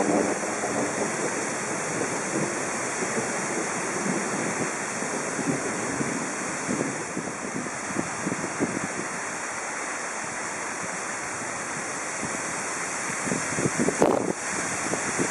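Strong thunderstorm gusts, over 40 km/h, rushing through tall poplar trees as a steady roar, with wind buffeting the microphone in irregular thumps and a harder blast about fourteen seconds in.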